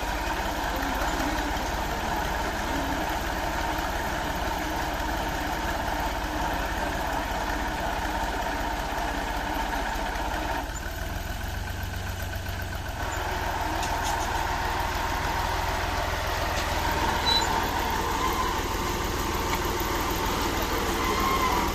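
New Holland tractor's diesel engine running steadily at idle, easing slightly for a couple of seconds about halfway.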